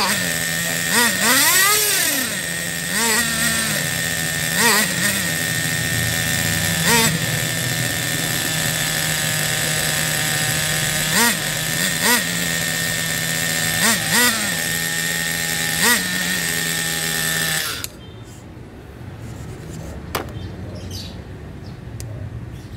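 Small two-stroke nitro glow engine of a 1/10-scale RC monster truck idling through its warm-up, its throttle blipped briefly about every one to two seconds. It cuts off suddenly about three-quarters of the way through, followed by a single click.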